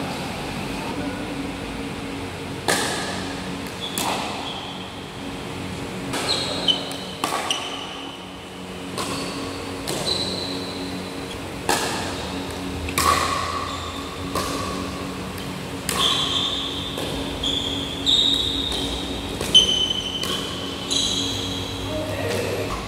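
Pickleball paddles striking a plastic ball back and forth in a doubles rally: sharp pocks at an uneven pace, one every second or two, with sneakers squeaking briefly on the court floor and a steady low hum underneath.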